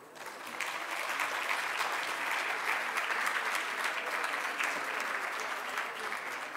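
An audience applauding, the clapping swelling over the first second and then holding steady.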